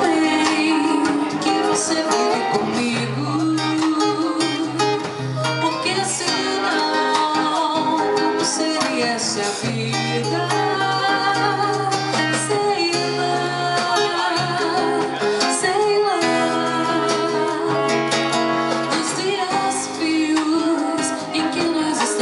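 Live band music: acoustic guitar and keyboard playing over long held bass notes, with drums, in the instrumental introduction before the vocals come in.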